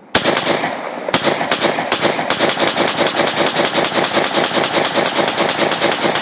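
Semi-automatic AR-15 rifle in .223 firing: a single shot, then a few shots about half a second apart, then a rapid string of several shots a second as the 30-round magazine is emptied.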